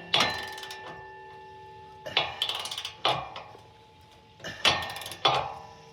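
Steel wrench or socket clanking against a steel receiver hitch and its mounting hardware while the hitch bolts are tightened, five metallic clanks, several leaving a ringing tone.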